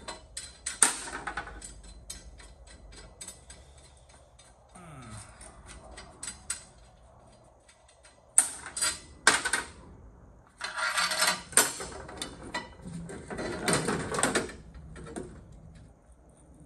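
Metal parts of a Porsche 928 torque tube being handled on a steel workbench: a run of light clicks and clinks, then several louder bursts of metal clattering and scraping in the second half.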